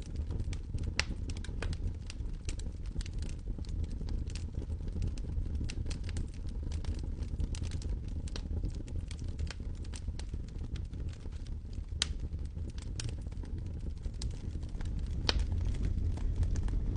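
Dry leaves being crushed and crumpled: a continuous run of crisp crackles with a few sharper snaps, over a steady low rumble.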